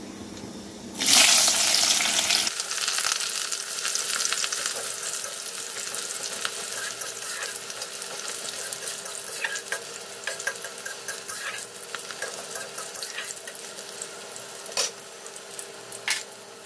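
Sliced onion and green chillies hit hot mustard oil in a wok and set off a sudden loud sizzle about a second in. Steady frying sizzle follows as a spatula stirs, with small clicks and a couple of sharp knocks near the end.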